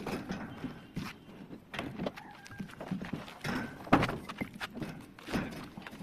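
Irregular knocks and clatter of building work, with a sharp knock standing out about four seconds in.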